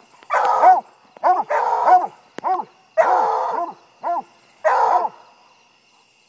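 Five-month-old coonhound pup barking treed at a raccoon: a run of about six barks, some drawn out and some short chops, each rising and falling in pitch, then a pause near the end.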